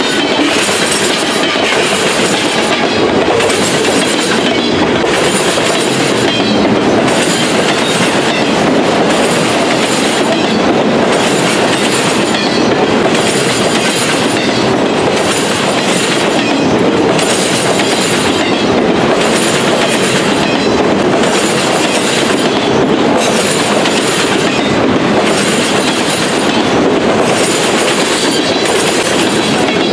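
Freight cars of a mixed freight train rolling past close by: a steady, loud rumble of steel wheels on rail, with a clatter that repeats roughly once a second.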